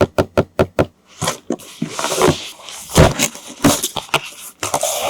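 Handling of a toy and its packaging: a quick run of about seven sharp clicks, then scraping and rustling, with a knock about three seconds in.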